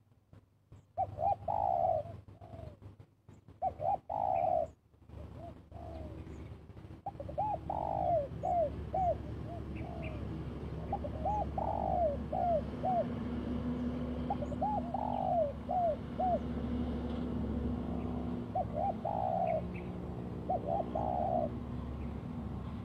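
Spotted dove cooing: phrases of a few short arched notes followed by a longer one, repeated every couple of seconds. A few sharp knocks come in the first seven seconds, and a low steady hum sets in about eight seconds in.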